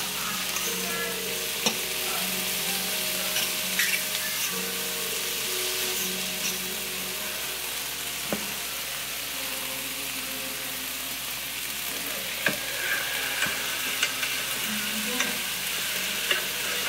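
Diced bell peppers sizzling in a frying pan as they are stirred with a fork. Occasional sharp clicks of the fork against the pan come through the steady sizzle.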